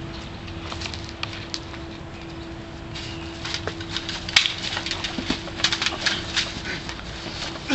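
Two people scuffling on dry leaves and dirt: shuffling, crunching footsteps and scattered sharp knocks and slaps, which grow busier about three seconds in. The loudest is a sharp crack about four seconds in.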